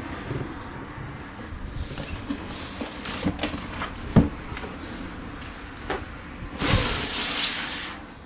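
Tokyo Marui next-generation electric airsoft gun SCAR-L: a few separate sharp clicks, then a loud burst lasting about a second and a half near the end, like a short full-auto string.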